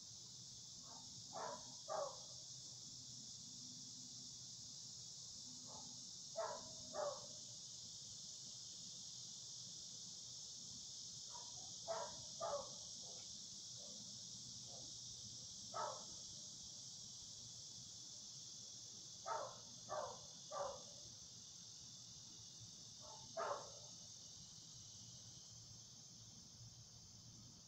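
A dog barking in short runs of one to three barks, with pauses of several seconds between runs. A steady high hiss of insects runs underneath.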